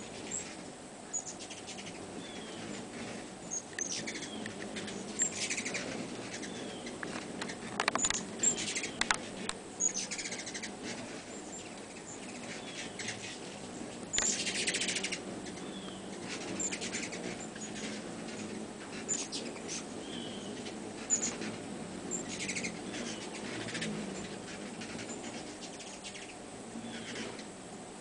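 Hummingbirds chipping: short, high, squeaky chips scattered throughout, with busier bursts of chatter about eight and fourteen seconds in, over a steady low background hum.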